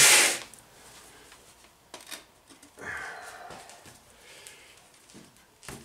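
A car wheel and tyre being handled and lifted to be put back on the hub: a few soft knocks and a brief scrape, with a click near the end.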